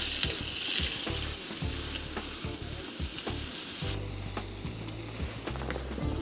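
Meat and vegetables sizzling on the slanted iron grill plate of a Snow Peak Grill Burner Seppoen gas camping grill. The sizzle is loudest in the first second, dies down, and cuts off about four seconds in.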